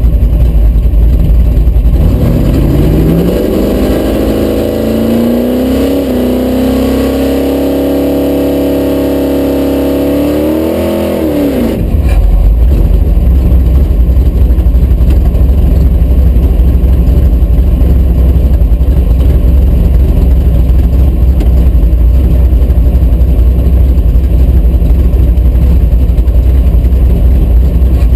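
1972 Dodge Dart drag car's engine, heard from inside the cabin. A loud low rumble at idle, then about two seconds in it revs up, holds high revs for about eight seconds and drops sharply back, returning to a loud idle rumble for the rest.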